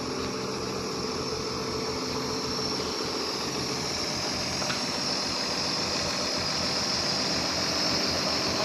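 Excavator's diesel engine running steadily with an even hum, growing slightly louder over the seconds.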